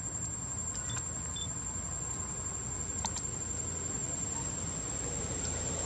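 A steady high-pitched insect trill runs over a low background rumble, with a few faint clicks about one and three seconds in.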